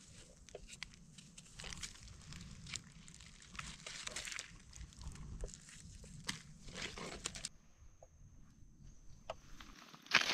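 A knife blade scrapes and clicks against a wild mushroom's stem as soil is cleaned off, with scattered small handling noises and dry-leaf rustles. A louder rustle through dry leaf litter comes right at the end.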